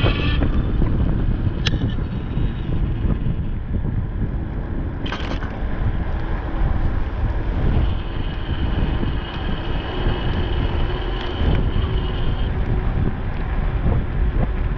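Wind buffeting the microphone of a moving e-bike rider: a loud, steady low rumble. A thin steady high tone sits above it for a few seconds past the middle, with a couple of brief clicks.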